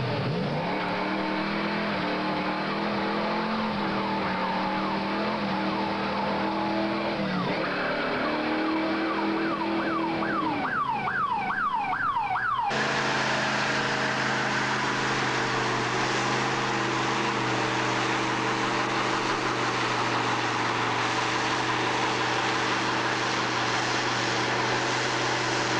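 A car engine running with a steady note, then a run of quick rising chirps about two a second. After a sudden cut, a car doing a burnout: the engine held at steady high revs under the constant screech of spinning tyres.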